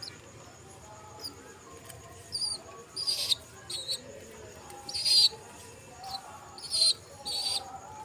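Birds chirping: about six short, high-pitched chirps, starting a couple of seconds in and coming in quick pairs, the loudest about five seconds in.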